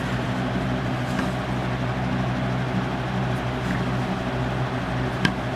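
Steady low background hum of a running machine, such as a fan or air conditioner, with a single light click about five seconds in.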